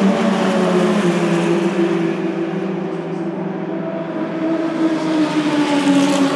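Engines of small open-wheel formula race cars running at speed on the circuit, the engine note sliding slowly lower over several seconds and getting brighter and louder again near the end.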